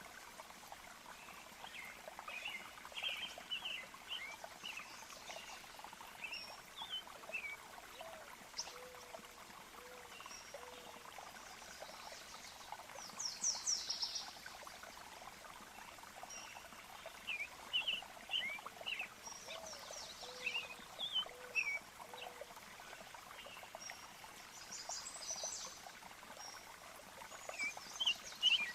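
Nature recording of birds chirping, with bursts of quick high trills, over the steady trickle of a stream.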